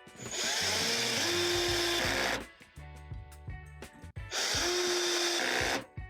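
A power tool running in two bursts, the first about two seconds long and the second just over a second, each with a motor whine over a hissing, grinding noise, over background music.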